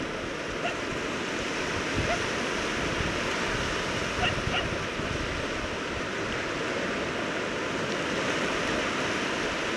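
Surf washing onto a sandy beach, a steady rush of small waves, with a few faint short cries about two and four seconds in.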